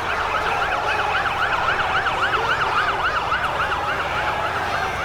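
Emergency vehicle siren in a fast yelp, its pitch sweeping up and down about three to four times a second and growing fainter near the end, over a dense crowd-noise bed in a mixed chaos-and-panic sound effect.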